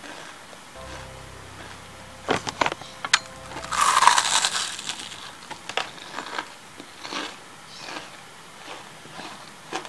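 Crisp, lacy fried-batter coating of banana fritters (pisang goreng kremes) crunching and crackling. A few sharp cracks come first, then a louder crunch about four seconds in, then scattered small crackles.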